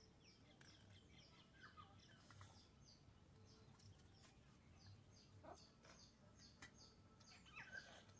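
Faint birdsong: a high chirp repeated about three times a second, with a few other scattered bird calls.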